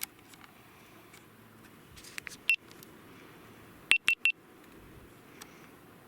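Short high electronic beeps: one about two and a half seconds in, then three in quick succession about a second and a half later.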